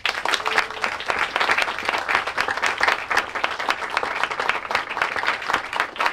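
Audience applauding: many people clapping hands in a dense, steady patter.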